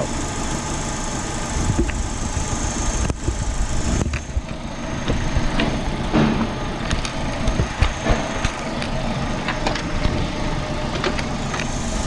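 2007 Holden Astra AH 1.8-litre four-cylinder engine idling steadily with the PCV vacuum leak reopened, running fully lean as unmetered air gets in past the faulty PCV valve.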